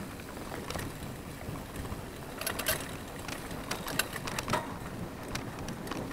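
Mountain bike rolling over a dirt singletrack: a steady rush of tyre and wind noise, with sharp clicks and rattles from the bike jolting over bumps, clustered about two and a half seconds and four seconds in.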